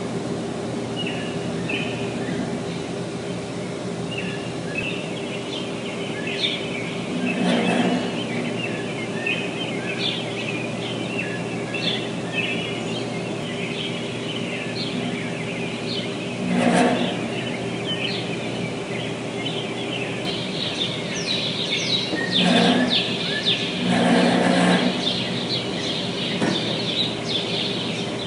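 Steady hum of refrigerated container units with birds chirping over it, the chirping growing busier in the last third. Several brief loud bursts break through, the loudest about 17 seconds in: the loud impulsive sounds from the refrigerated containers.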